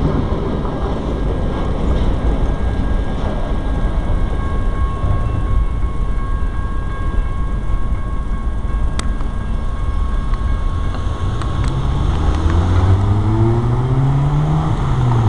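Freight train cars rolling past on the rails, a steady loud rumble with a thin, steady high tone over it for several seconds in the middle. Near the end a car engine revs up and then eases off.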